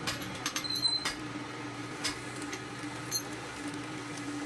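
Scattered light clicks and taps from hand tools working on a truck cylinder head, over a steady hum.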